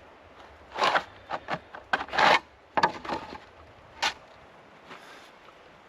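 A string of short scrapes and rubs of things being handled, about eight in a few seconds, the longest one about two seconds in.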